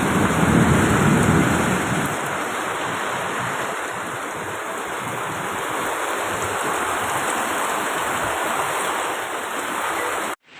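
Strong storm wind rushing steadily, with low rumbling on the microphone in the first couple of seconds.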